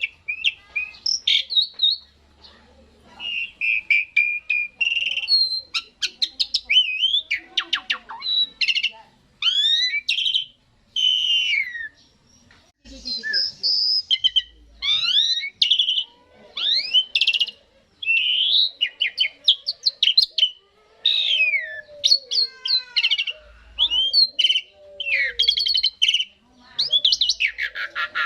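Asian pied starling (jalak suren) song: a fast, varied run of whistles, chirps and sliding notes in short phrases with brief pauses between them.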